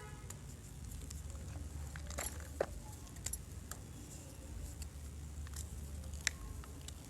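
Blocks of gym chalk being crushed and crumbled, making scattered crisp crunches and snaps. The sharpest come about two, two and a half and six seconds in, over a low steady hum.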